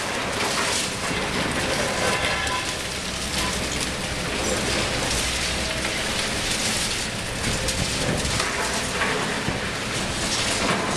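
Liebherr 954 long-front demolition excavator breaking down concrete: a steady, dense crackle and clatter of breaking concrete and falling rubble, with a brief squeal about two seconds in.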